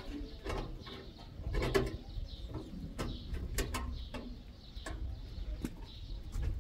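Several sharp clicks and light knocks from hands working electrical wires at a window-mounted evaporative air cooler, with birds calling and chirping in the background.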